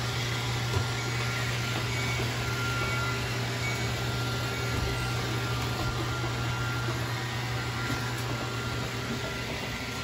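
Steady low mechanical hum with an even background hiss and a faint steady whine.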